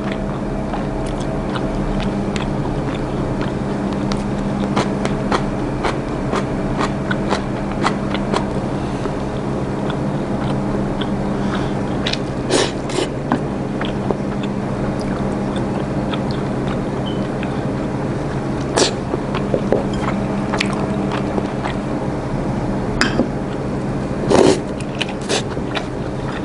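A person eating with wooden chopsticks: chewing, and sharp clicks of the chopsticks against a ceramic plate and bowl, with a few louder clicks in the middle and near the end. A steady low hum runs underneath.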